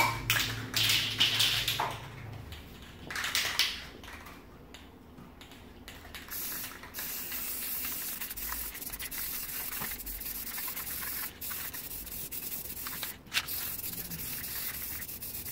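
Aerosol spray paint can spraying a light coat onto wooden boards: a steady hiss that starts about six seconds in and runs on with a few brief pauses, after a few short noises in the first seconds.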